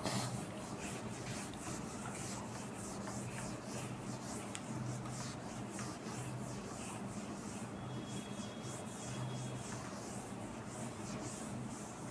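Whiteboard eraser wiping marker off a whiteboard in a steady run of rubbing strokes.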